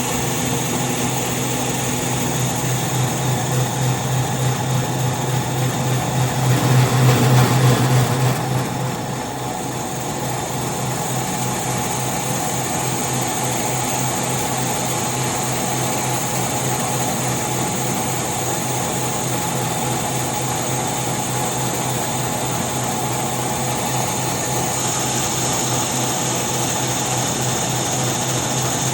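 Concrete milling machine running steadily with a low mechanical hum, growing louder for a couple of seconds about six seconds in, then settling back to an even run.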